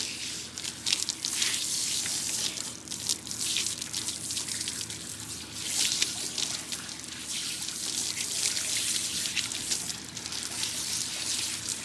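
Water splashing and sloshing close to the microphone, with irregular crackling splashes.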